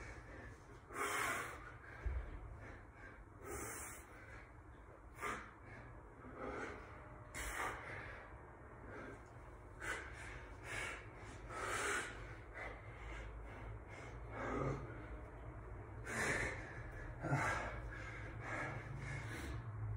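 A man breathing hard from exertion: heavy, irregular breaths, roughly one every second or two.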